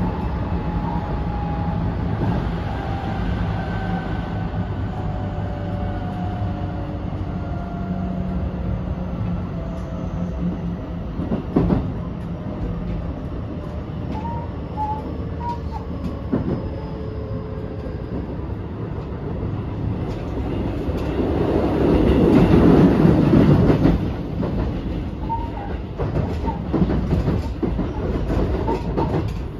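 Cabin running sound of a JR West 223 series motor car with a Toshiba IGBT VVVF inverter, slowing on the approach to a station. The inverter and traction motor whine falls steadily in pitch over rail and wheel noise. About 21 seconds in, a louder rumble of rail noise lasts for a couple of seconds, and short wheel squeaks come here and there.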